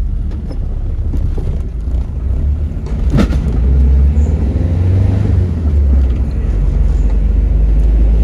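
A vehicle driving slowly along a concrete road, heard from on board as a steady low rumble of engine and road noise, with one short sharp knock about three seconds in.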